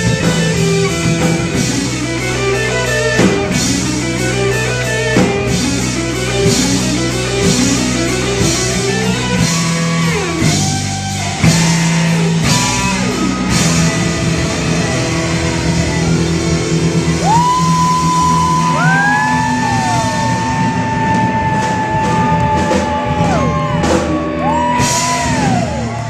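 Live rock band playing guitar and drums. In the second half, long held notes slide up and down in pitch.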